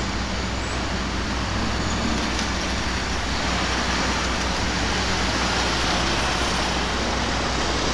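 Conrail diesel locomotive running steadily as it creeps along street-running track, mixed with road traffic; a car passes close by in the second half.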